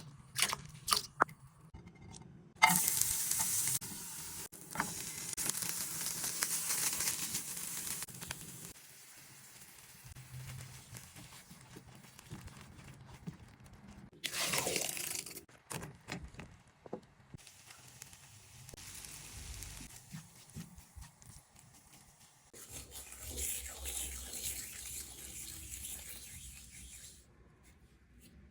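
Kitchen cooking sounds: food sizzling in a hot pan in several spells, the first starting suddenly and fading over about five seconds, with scattered clicks and knocks of utensils.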